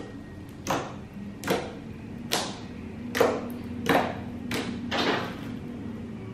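Slime being squished and pressed by hand, giving a series of wet crackling pops, about seven of them, a little under a second apart.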